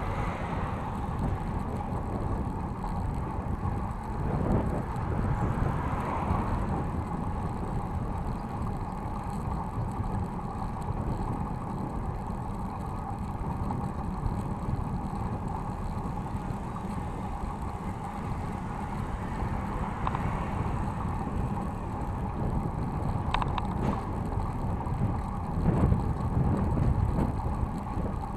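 City bike rolling along a paved bike lane, picked up by a handlebar-mounted action camera: steady tyre and road rumble with wind on the microphone and rattle from the bike. The rumble swells louder a few times, most of all near the end, and two short clicks come a little before that.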